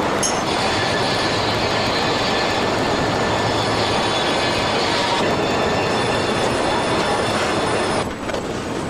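Steady factory machinery din from a car assembly line, with several high, steady whining tones over it. The din thins out about eight seconds in.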